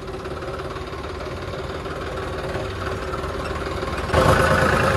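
A John Deere tractor's diesel engine running under way, heard from the driver's seat, its level slowly rising. About four seconds in, the sound jumps suddenly louder.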